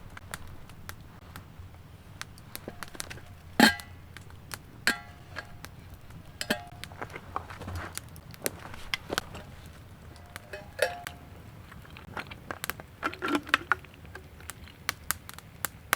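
Irregular knocks and clinks of hard objects being handled, several with a brief metallic ring; the loudest comes about three and a half seconds in.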